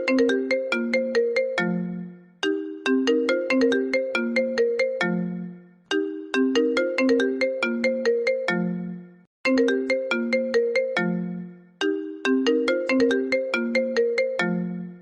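iPhone ringtone playing: a short melody of quick, bell-like mallet notes that loops about every three and a half seconds.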